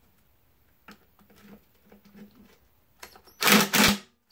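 Faint clicks and taps of a metal socket and extension being fitted onto a bolt. About three and a half seconds in come two short bursts of a cordless drill spinning a 9/16 socket to back the bolt out.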